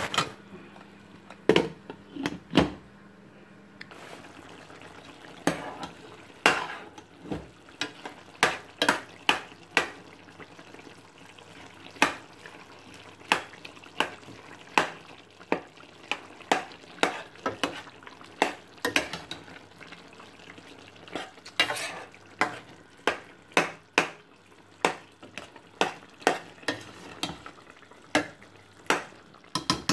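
A metal ladle stirs and scrapes chicken keema in a stainless-steel pot, with irregular clinks against the pot, roughly one or two a second. Under it is a faint sizzle of the mince cooking in its own juices on low gas.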